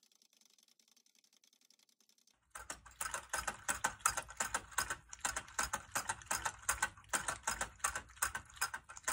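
A Shih Tzu licking the roller-ball nozzle of a water bottle on a stand: a fast run of wet clicks, about four to five a second, starting about two and a half seconds in.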